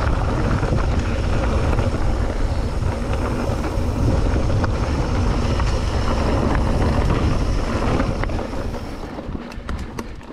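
Wind buffeting the microphone of a camera on a mountain bike, mixed with the rattle of the bike rolling fast over a dirt trail. About eight seconds in the noise eases off, and a few sharp clicks follow near the end.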